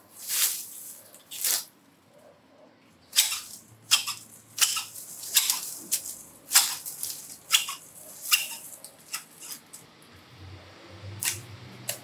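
Two-handed hedge shears snipping shrub branches: about a dozen short, sharp snips at an uneven pace, coming closest together in the middle.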